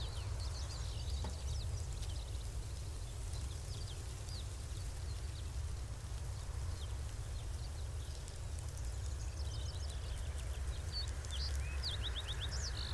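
Outdoor ambience: a steady low rumble with scattered bird chirps, and a quick run of chirps near the end.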